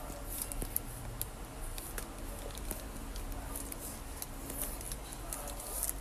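Plastic parcel wrapping crinkling and rustling as it is handled, with many small crackles and clicks over a low steady hum.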